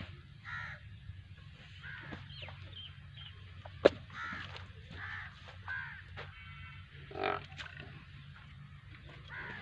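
Crows cawing repeatedly, one short call after another, with a single sharp click about four seconds in over a steady low rumble.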